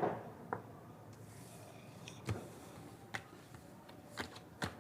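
Handling noise: about five short, sharp taps and clicks spread irregularly over a few seconds, over faint room tone.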